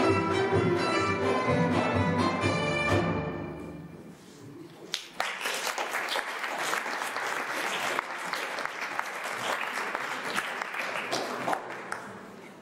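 A folk band of violin, double bass and large drum plays the last bars of a tune, which ends about three and a half seconds in. After a short lull the audience applauds for about seven seconds, the clapping fading near the end.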